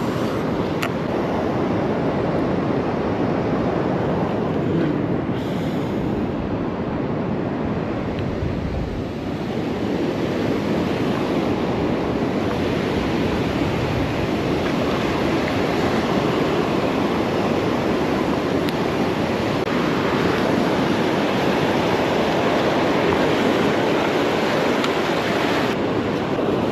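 Ocean surf washing on a sandy beach, a steady rushing noise mixed with wind on the microphone.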